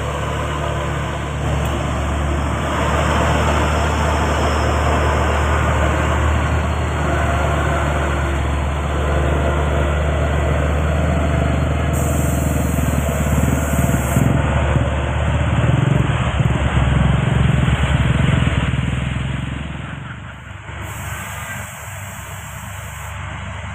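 Heavy diesel tank truck's engine running with a deep, steady drone and hissing road noise as it passes close and pulls away; the engine sound falls off about sixteen to twenty seconds in, leaving quieter traffic noise.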